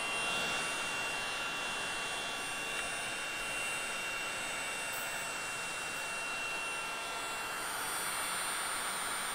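DeWalt heat gun running steadily, its fan blowing hot air with a thin whine over the rush, as it shrinks glue-lined heat-shrink butt connectors onto wires.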